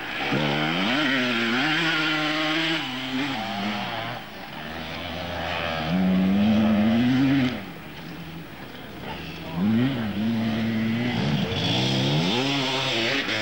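Two-stroke enduro motorcycle engines revving as the bikes ride past, the pitch climbing, holding and dropping away in three passes. The loudest pass comes about six seconds in.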